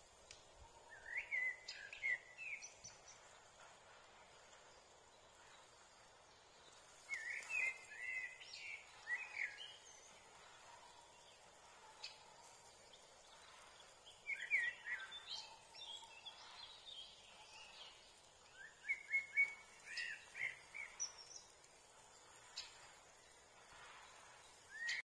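A songbird singing short warbling phrases, four of them several seconds apart, over a faint steady hiss.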